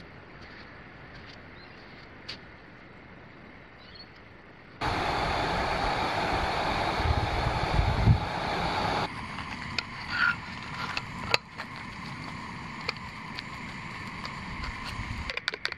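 Faint outdoor background for about five seconds. Then a gas canister stove burns under a pot at a full boil, a loud steady hiss of burner and steam. After about nine seconds the sound cuts to the stove's quieter steady hiss under a frying pan of bread, with a few light clicks.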